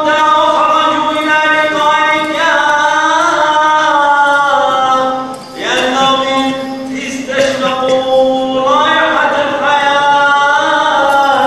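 Syriac Catholic liturgical chant: long, ornamented held notes that slide between pitches, with a short break a little before halfway through.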